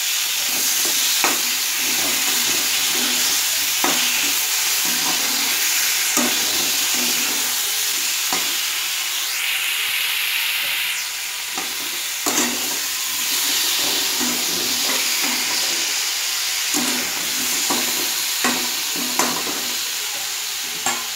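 Tomato wedges sizzling in hot oil in a steel kadai, with a metal spatula now and then scraping and knocking against the pan as they are stirred.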